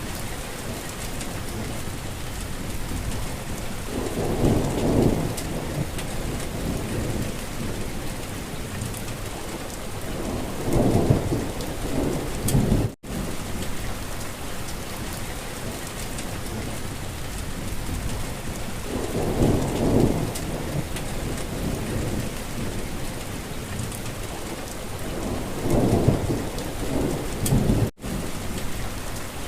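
Steady rain falling, with four short low rumbles spread through it. The sound cuts out for an instant twice.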